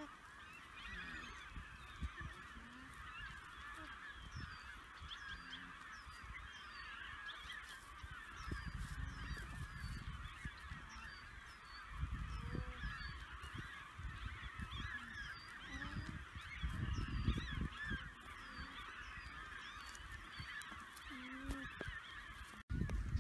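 A dense, continuous chorus of many bird calls, with short high chirps repeating over it and wind gusting on the microphone now and then.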